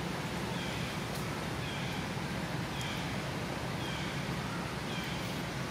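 Steady outdoor hiss with a faint chirping call repeated about once a second, each chirp short and falling in pitch.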